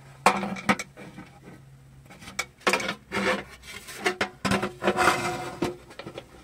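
Hands handling and turning a thin aluminium baking pan: fingers rub and scrape over its coated surface and the sheet flexes, in a few short scraping bursts with sharp clicks.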